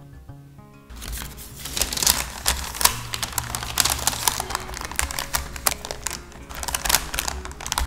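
Printed baking paper crinkling and rustling as it is folded over cookies in a metal tin and taped down with washi tape. It starts about a second in as a dense, crisp crackle.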